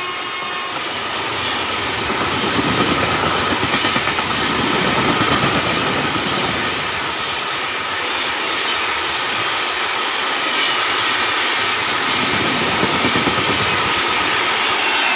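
Passenger coaches of an express train passing at speed: a loud rushing rumble with bursts of quick wheel clatter. The tail of the locomotive's horn fades out in the first second.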